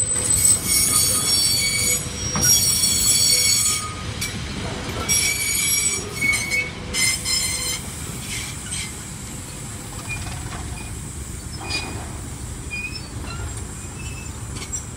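Goods wagons rolling past on steel rails, their wheels squealing high-pitched in repeated bursts over the first half, then settling to a low rolling rumble with occasional faint squeaks.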